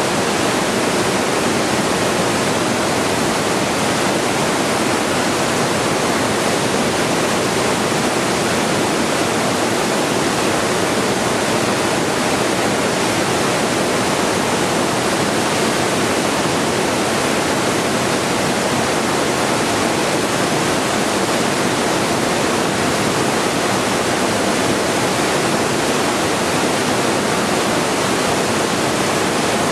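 Continuous white noise as a sleep aid for babies: a steady, even hiss that never changes.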